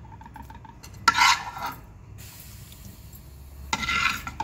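A spoon scraping and clinking against a cooking pan as fried masala is scooped out onto pasta. There are two louder scrapes, about a second in and near the end.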